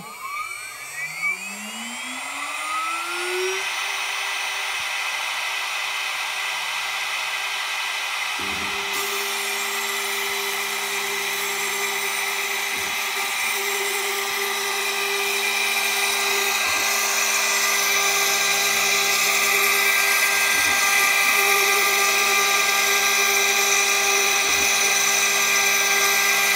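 Small CNC mill's electric spindle spinning up, its whine rising in pitch over the first few seconds and then holding steady. About eight seconds in, the axis stepper motors join with a lower hum as the machine starts the surfacing job on the sacrificial layer, with a brief change every few seconds as it turns between passes.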